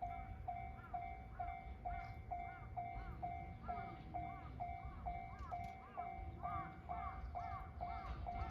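Japanese railway level-crossing warning bell ringing, its electronic clang repeating about twice a second. The crossing is closed, signalling an approaching train.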